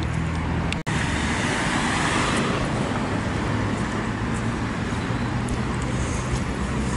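Steady rush of road traffic and moving air while riding a bicycle along a bike lane beside a road, broken by a brief gap less than a second in.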